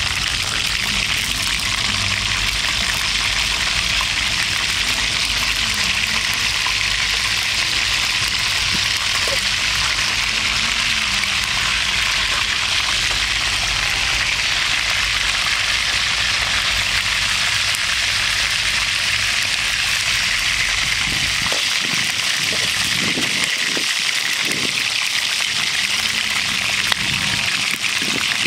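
Whole chicken frying in hot oil in a frying pan, a steady dense sizzle, with one brief click near the end.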